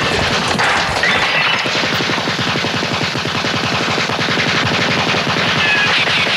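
Sustained rapid automatic gunfire, many shots a second without a break. Short whines fall in pitch over it about a second in and again near the end.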